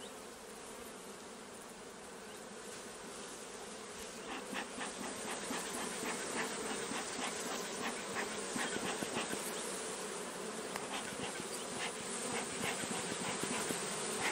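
Carniolan honeybees buzzing steadily around an open hive. From about four seconds in, a bee smoker's bellows is squeezed repeatedly, adding short puffs over the hum.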